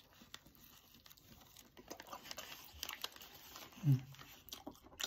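Paper sandwich wrapper crinkling while a toast sandwich is bitten into and chewed, with a brief vocal sound about four seconds in.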